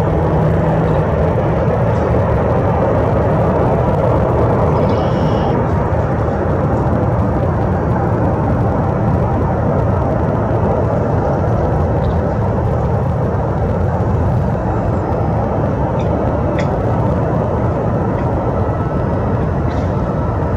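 Boeing 787-8 airliner taxiing, its Rolls-Royce Trent 1000 turbofans at taxi idle making a steady, even rush of noise.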